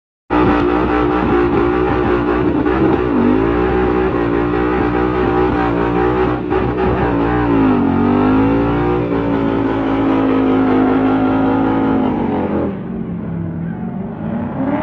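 Ford Mustang's engine held at high revs during a burnout, over the rush of spinning rear tyres. The revs dip and climb back twice, about three and eight seconds in, and the sound drops in level near the end.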